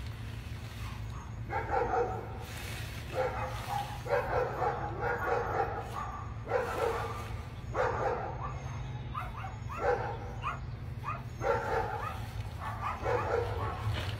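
A dog barking and yipping in repeated bouts of about a second each, over a steady low hum.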